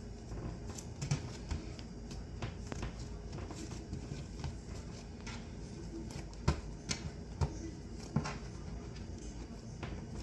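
Hands folding and pressing bread dough on a countertop while shaping loaves: scattered soft taps and pats, with a few sharper knocks a little past the middle.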